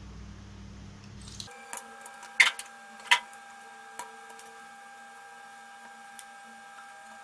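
A few sharp clicks and taps of metal tools on a circuit board while the solder joints of a capacitor are being worked loose, the two loudest about a second apart. A low hum stops abruptly about a second and a half in.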